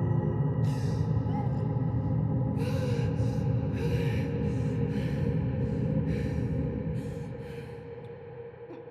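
A person's ragged breaths, about nine irregular breathy gasps, over a low sustained dark-ambient music drone. Both fade down near the end.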